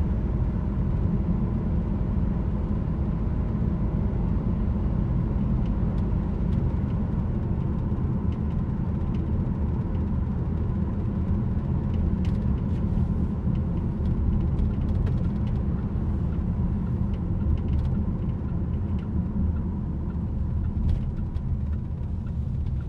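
Steady low rumble of a Nissan Dayz kei car on the move, with faint, scattered clicks. The car has an abnormal noise from its rear suspension, which the owner traces to the base of a coil spring, a known problem with a countermeasure part.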